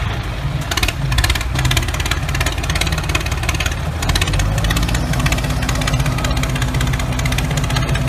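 Truck engine running steadily, with a fast rattle over it from about a second in and a steady hum joining about halfway.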